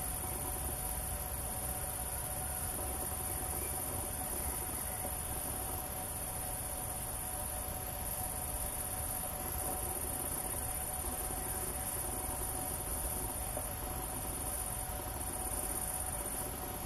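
A steady, high-pitched chorus of crickets chirring in the meadow grass.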